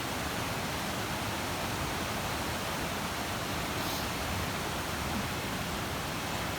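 Steady rushing of fast-moving floodwater, an even, unbroken noise.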